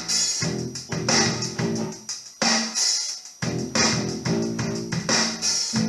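Electric bass guitar played along with a rock recording that has drums with bright cymbal hits and guitar, at a steady beat. About two and a half seconds in, the low notes drop out for about a second, then the playing comes back in.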